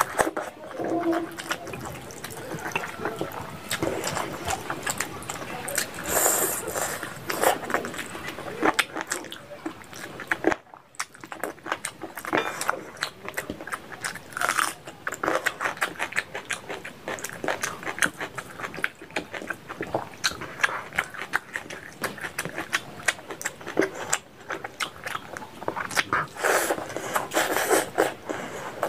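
Close-miked, wet chewing and lip-smacking of a person eating rice and curry by hand, in a dense run of small clicks and squelches. There is a brief break near the middle.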